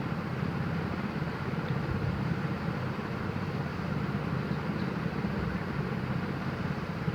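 A steady low rumble and hiss from the stovetop kadai of hot oil as the ground curry-leaf paste goes in for tempering, after the mustard seeds have popped.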